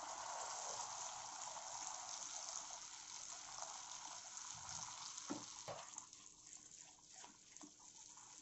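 Hot caramel of melted sugar and butter sizzling and bubbling as cream is poured in and stirred with a silicone spatula; the hiss dies down after about six seconds as the cream mixes in, with a few light knocks near the end.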